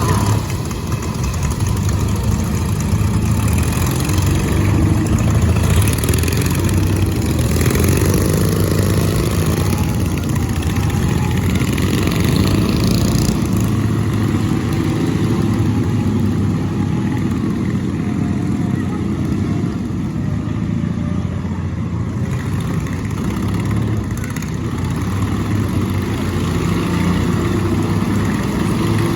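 Racing lawn mowers' small engines running, a continuous engine noise with slight rises and falls in pitch.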